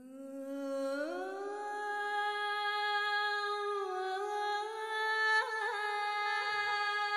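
Soundtrack music: a single melodic line holding long notes, sliding up about a second in and shifting pitch a couple more times, with a deep drum hit near the end.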